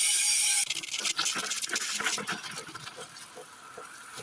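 Espresso machine steam wand hissing, cutting off abruptly under a second in. Irregular faint crackles and ticks follow and fade away.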